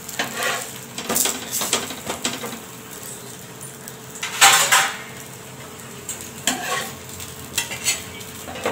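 Flat steel spatula scraping and tapping on an iron tawa as a paneer paratha is pressed and turned, over a faint sizzle. A louder metal scrape-and-clatter comes about halfway through, and steel clinks near the end as the paratha is lifted onto a steel plate.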